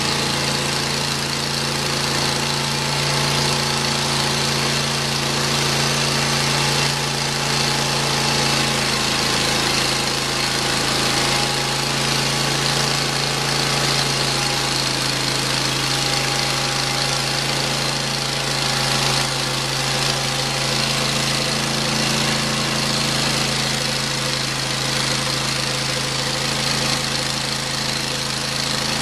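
Engine of a Hud-Son Oscar 36 portable bandsaw mill running at a steady speed as the saw head works along a soft maple log.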